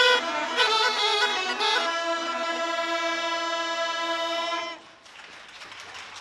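Ensemble of Rhodope kaba gaidi (large, low-pitched goatskin bagpipes) playing a folk suite: a melody over a steady drone, ending on a long held note. The note cuts off about three-quarters of the way through, leaving only faint background noise.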